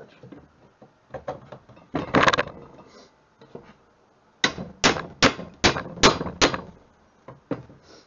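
A hammer tapping on a steel car pedal assembly: six sharp strikes in a row, about two and a half a second, after a clatter of the metal parts being handled.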